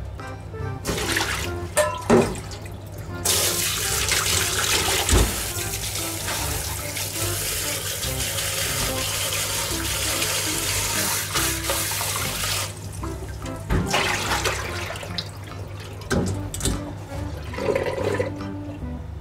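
Tap water running steadily into a kitchen sink for about ten seconds, starting about three seconds in and stopping near the middle, with shorter splashes before it; background music plays underneath.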